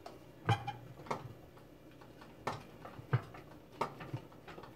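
Aluminium lid of a Steamliner pressure cooker being twisted on its pot by the handle, giving about five separate light clicks and knocks spread over a few seconds.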